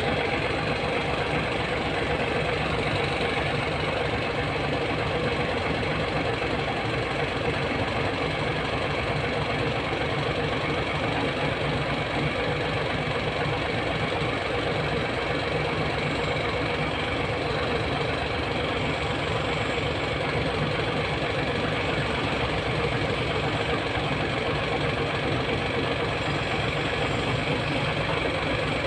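Hino E13C inline-six diesel engine of a Hino 700 truck idling steadily.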